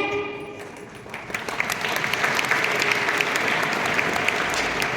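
Assembly audience applauding: many hands clapping, starting about a second in and holding steady, just after a voice stops.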